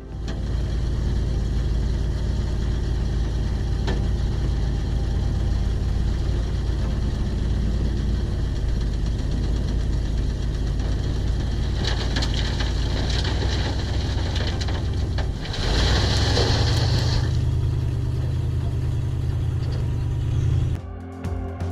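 Excavator's diesel engine running steadily under work. About two-thirds of the way in the engine note rises and a short burst of harsher, higher noise comes with it; the engine sound then cuts off shortly before the end.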